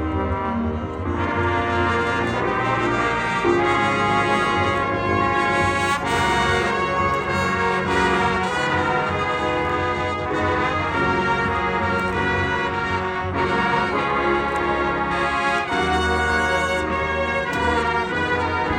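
Marching band brass section playing loud sustained chords, with trombones and trumpets prominent over a low bass line, the notes changing every second or two.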